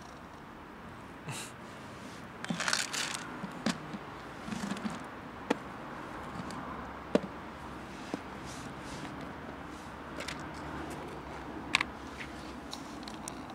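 A snap-lock plastic food container being opened: its clip latches snap loose and the plastic lid rattles, giving a cluster of clicks and rustles followed by a few single sharp clicks, over a steady low background hum.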